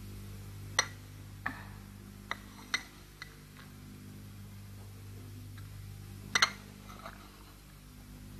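Light porcelain clinks of a lidded teacup and its lid and saucer being handled: a few sharp clinks in the first three seconds and a louder double clink a little past six seconds, over a faint steady low hum.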